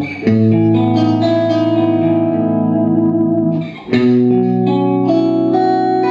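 Suhr Classic Antique Stratocaster electric guitar played through an amp: chords struck and left ringing, with single notes moving over them, and a fresh chord struck about four seconds in.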